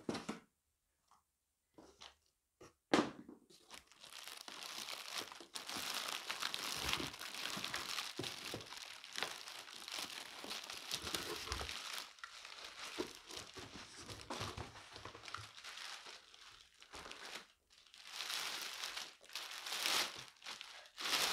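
Packaging around a new vacuum cleaner being unwrapped and pulled off, with a few knocks about two to three seconds in, then a long stretch of continuous crinkling and tearing.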